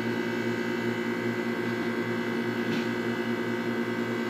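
Steady electrical hum and whine of a running soft-drink multiplex unit's motors, with a faint tap a little past halfway.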